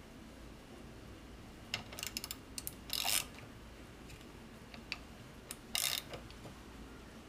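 Metal hand tools clicking and clinking on metal parts in short, separate bursts: a quick run of clicks about two seconds in, then short rattles around three seconds and again near six seconds.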